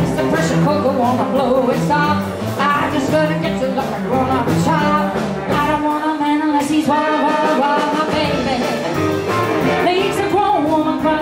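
Live band playing a 1950s-style blues number: electric and acoustic guitars, upright bass and drums, with a lead melody bending over the top.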